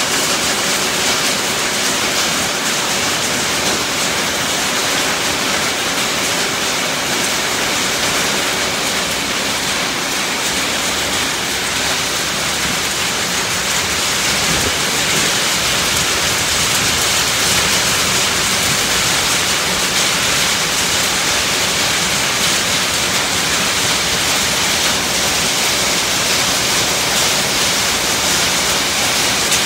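Rain falling steadily on a tin roof, a dense, even patter.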